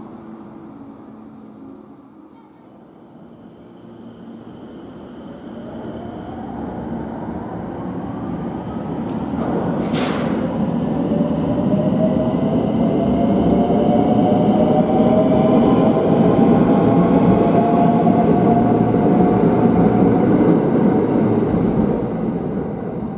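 A 521 series electric train approaches along the platform, its running noise and motor whine growing steadily louder. There is a short sharp burst of sound about ten seconds in. The train is loudest as it runs past, and the sound falls away near the end.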